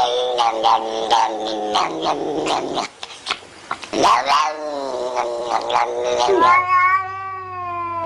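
Domestic cat yowling in long, drawn-out wails, with a short break about three seconds in. The last wail starts past six seconds and is held, slowly falling in pitch.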